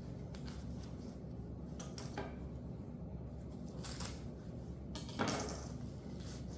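A few brief rustles and knocks of hands handling packaging and a handbag, the loudest about five seconds in, over a steady low hum.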